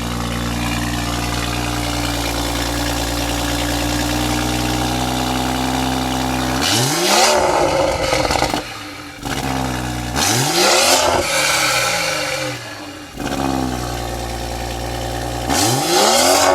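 BMW X3 M40's turbocharged 3.0-litre straight-six, with an aftermarket downpipe and tune, running steadily for about six seconds, then revved hard three times. Each rev rises sharply and falls back.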